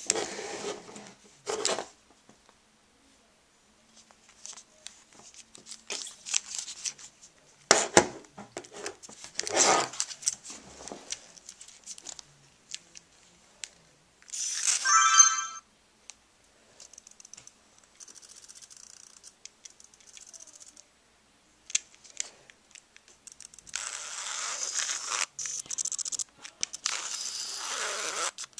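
Gritty scraping, crunching and clicking from a Nikon Coolpix S3000 compact camera with sand in its mechanism, in intermittent bursts with quiet gaps. There is a short buzzing rattle about halfway through and a longer stretch of scraping near the end.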